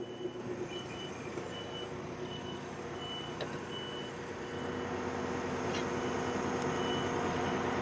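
A reversing alarm beeping steadily, about three beeps every two seconds, over the steady diesel engine of a Wirtgen 210Fi asphalt milling machine, which grows louder about halfway through.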